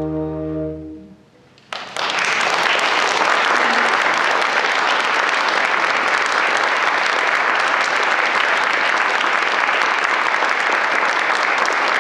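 The closing held chord of a trombone and a small pipe organ with low pedal notes, released about a second in. After a brief hush, an audience breaks into applause that keeps going steadily.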